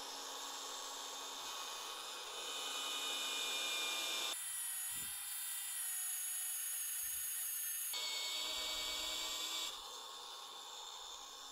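Milwaukee M18 cordless magnetic drill running, its 3/8-inch twist bit cutting through the 1/4-inch steel wall of a square tube. A steady motor whine that changes abruptly about four seconds in and again about eight seconds in.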